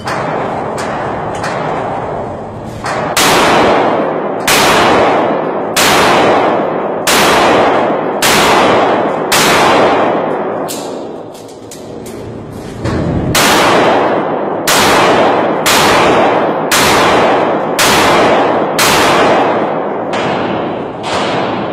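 Handgun shots fired one at a time at a steady pace of about one a second, more than a dozen in all, each followed by a long echo off the walls of an indoor range. There is a pause of about two seconds near the middle before the shots resume.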